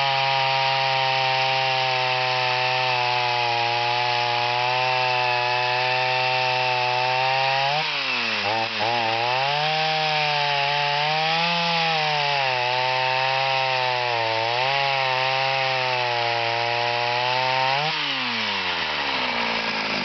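Old Olympyk 251 Super two-stroke chainsaw running. It runs at a steady high speed for about eight seconds, then its pitch sags and picks up again several times. Near the end the pitch falls steadily as the engine slows down.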